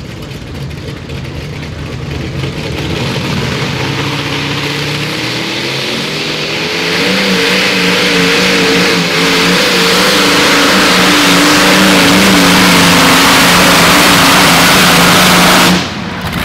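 Modified pulling tractor's supercharged engine at full throttle under load. It gets louder over the first several seconds, holds a loud, wavering high-revving note, then cuts off suddenly near the end.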